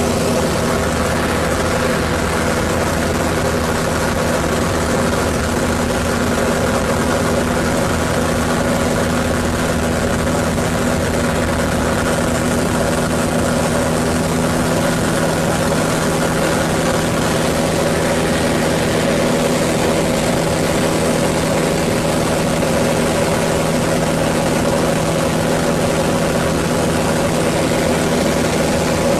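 Pitts Special aerobatic biplane's piston engine and propeller droning steadily in level flight, heard from inside the cockpit.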